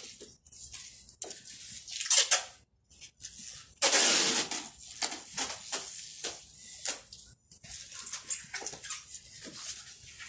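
Brown packing tape and cardboard boxes being worked by hand: a string of short crackling, rasping sounds of tape and cardboard, with one longer, louder tape pull about four seconds in.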